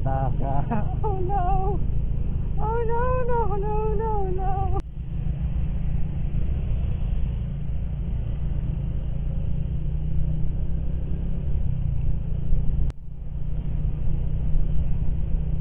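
Steady low rumble of wind and road noise on a scooter rider's helmet-mounted microphone, with the scooter's engine running underneath while riding in traffic. The sound drops out briefly twice, about 5 s and 13 s in.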